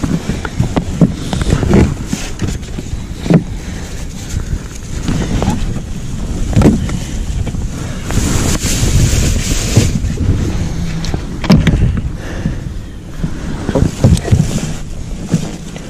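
Wind buffeting the microphone as a low, uneven rumble, with rustling of clothing and scattered knocks and clicks from handling gear in a small boat.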